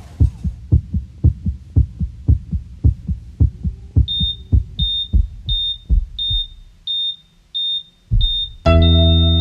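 Heartbeat sound effect thumping in quick lub-dub pairs, the tail of a siren fading out at the start. About four seconds in, a high patient-monitor beep joins, sounding about every 0.6 s. The beats thin out and stop, and electric piano music comes in near the end.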